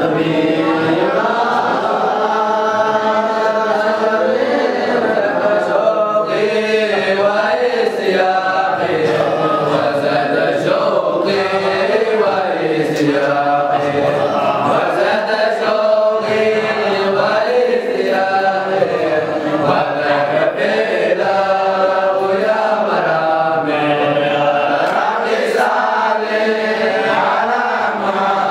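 A group of young men's voices chanting a dhikr together, an Islamic devotional chant sung in a steady, repeating melody with no instruments.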